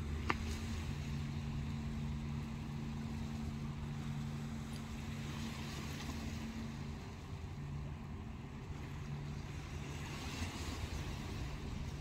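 Steady low diesel hum of a Caledonian MacBrayne car ferry idling at its berth, with small waves washing over the shingle. One sharp click comes just after the start.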